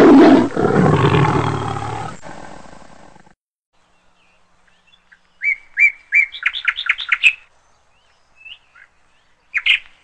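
Intro sound effect: a loud roar that fades out over about three seconds, then, after a short silence, a quick run of high, short bird chirps, with a few more near the end.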